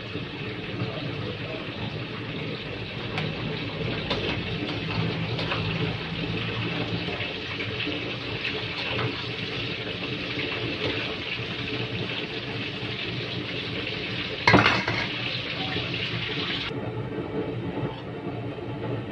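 Hot cooking oil sizzling in a wok as fried tofu cubes are lifted out, over a steady low hum. There is one loud metallic clank about three-quarters of the way through, and the sizzle cuts off near the end.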